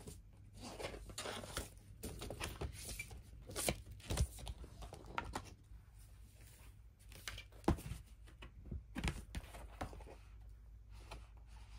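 Paper inner sleeve and cardboard record jacket being handled: intermittent rustling and sliding, with a few sharp taps, the loudest about four and eight seconds in.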